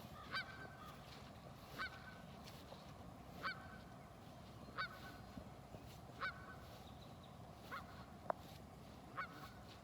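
Canada geese calling: short honks repeated about every second and a half, seven in all.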